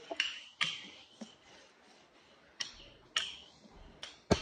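Wooden rolling pin clacking in sharp, irregular knocks as biscuit dough is rolled back and forth, about seven in all, the loudest near the end.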